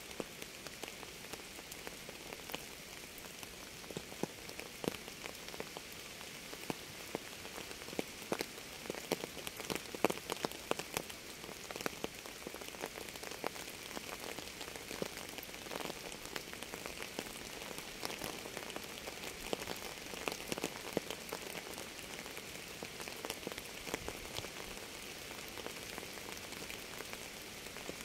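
Steady rain falling, with many single drops tapping sharply and unevenly over the constant patter.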